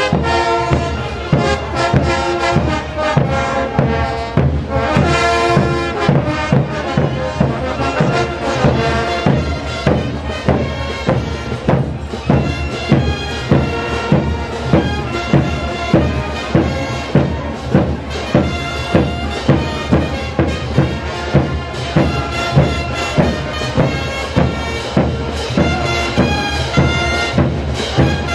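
Festival band music: wind instruments playing a melody together over a steady drum beat.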